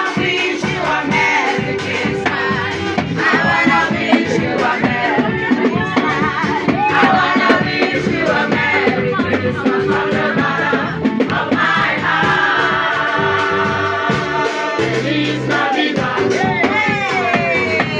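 Choir singing a gospel-style Christmas carol, accompanied by a drum kit and keyboard, with a steady beat.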